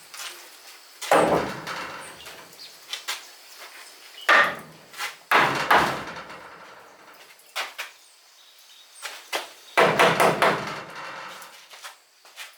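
Heavy wooden knocks and thuds, with four main strikes a few seconds apart and lighter clicks between them: timber being struck and handled while building a wooden wall.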